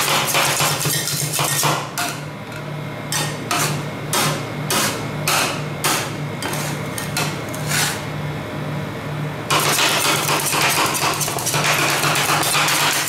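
Metal spatulas chopping and scraping ice cream and cake on a frozen steel cold plate: rapid metal-on-metal clicking. About two seconds in it slows to separate strikes, about two a second, and turns fast again near the end. A steady low hum runs underneath.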